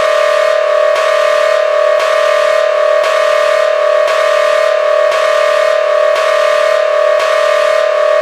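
Emergency alert (EAS-style) alarm tone: a loud, steady electronic sound held on two pitches, with a slight pulse about once a second.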